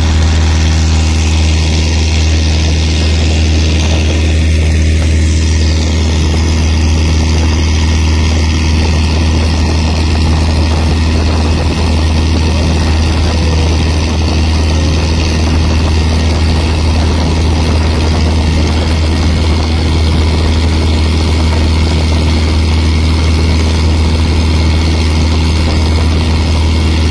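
Fishing boat's engine running steadily under way, a deep, even drone that does not change speed, over the steady rush of water past the hull.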